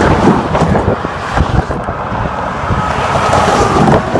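Semi trucks, a Western Star and a Peterbilt, driving past on the highway: steady engine and tyre noise from the traffic, with wind buffeting the microphone.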